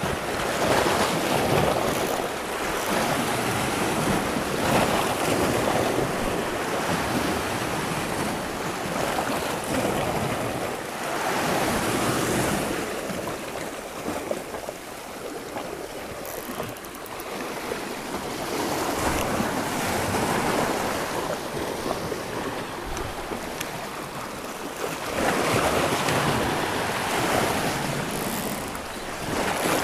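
Sea waves surging and washing against shoreline rocks, swelling and falling every few seconds, with wind buffeting the microphone.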